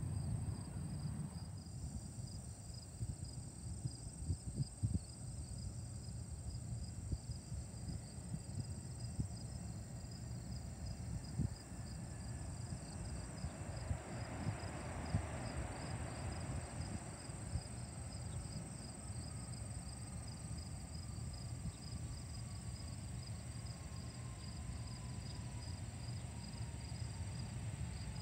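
Insects chirping in a steady, evenly pulsing rhythm over a low outdoor rumble of wind. About halfway through, the sound of a distant jet swells and fades, followed by a faint whine that falls slowly in pitch.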